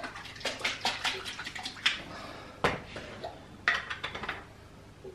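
Water splashing in a stainless-steel kitchen sink as hands are rinsed, in a quick run of splashes. Then come two sharp knocks and a few clinks as a glass jar and kitchen things are handled.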